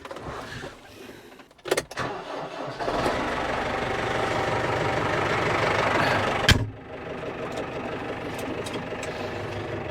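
Case tractor's diesel engine starting up about three seconds in and running steadily. A sharp clack comes a little after six seconds, after which the engine sounds quieter.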